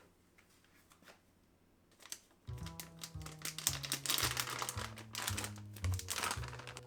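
Quiet at first with a few faint clicks. About two and a half seconds in, background music with a steady run of bass notes begins, over crisp crinkling and tapping sounds.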